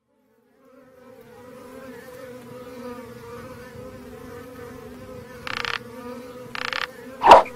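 Small quadcopter drone's propellers buzzing steadily, fading in during the first second. Two short hissing bursts come about five and a half and six and a half seconds in, and a loud short burst near the end.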